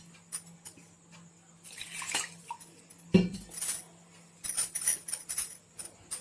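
Metal kitchenware clinking and knocking as a mixer-grinder jar is rinsed with a little water and emptied into the pan of gravy, with short splashy swishes and one loud knock about three seconds in.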